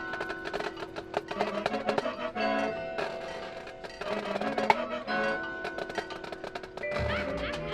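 Marching band playing a percussion-heavy passage of its field show: quick struck notes over held tones, with a deep low-register part coming in near the end.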